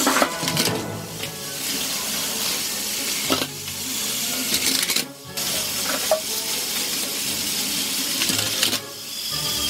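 Plarail battery toy trains running on plastic track, their small motors and gears whirring steadily, while trains tip off the end of the raised track and clatter onto a pile of plastic toy trains, with about three sharp clattering crashes.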